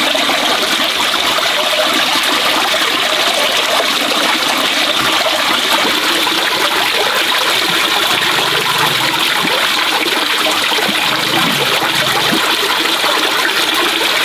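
Water pouring steadily from a pipe spout into a full plastic basin, a constant splashing trickle.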